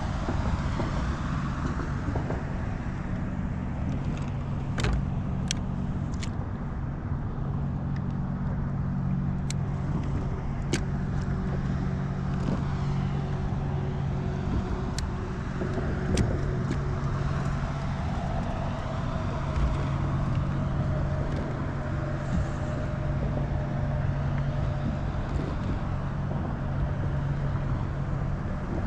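Boat motor running steadily at low speed with an even low hum, holding the boat on a spot against the current. A few sharp clicks sound over it.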